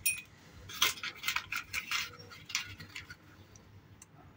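A metal teaspoon clinking and scraping against a container as a spoonful of baking powder is scooped out: a run of light taps and scrapes over the first three seconds, then only faint ones.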